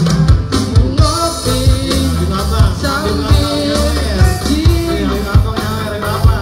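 A live gambus band plays an upbeat song: vocals over a steady, strong drum beat and sustained instrumental backing.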